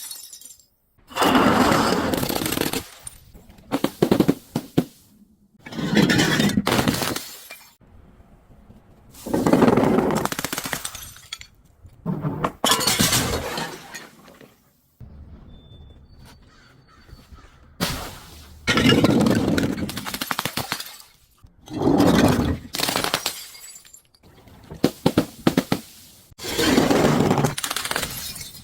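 Objects being crushed and broken, one after another: about nine separate crunching, crackling breaks, each lasting a second or two with short pauses between them.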